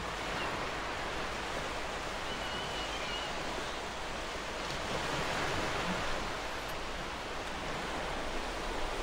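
Steady rushing noise without any pitch, swelling a little about five seconds in.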